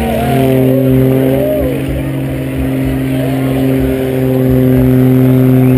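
Piston-engine propeller aerobatic planes droning steadily in flight after a formation crossing pass, growing a little louder near the end. A few brief whistle-like pitch glides sound in the first two seconds.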